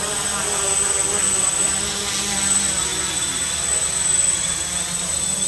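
Quadrotor's electric motors and propellers buzzing in flight, the pitch wavering constantly up and down as the motors speed up and slow down to hold and steer it.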